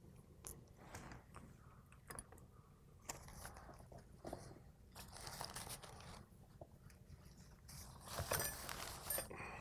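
Faint handling noise as a Hardinge cross slide is taken apart: crinkling of a paper shop towel and small clicks of steel parts, irregular, with a louder patch of rustling near the end.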